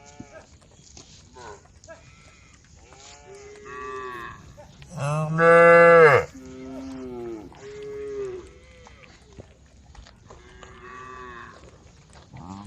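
Cattle in a herd mooing, one call after another. The loudest is a long, low moo about halfway through, with shorter, quieter moos before and after it.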